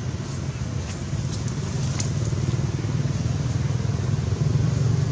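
A motor vehicle's engine running, a steady low rumble that grows a little louder, with a few faint ticks in the first couple of seconds.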